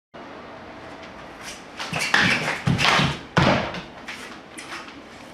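Katana test cuts: a run of quick, sharp slicing strikes through cutting targets, the three loudest close together in the middle, over a steady low background.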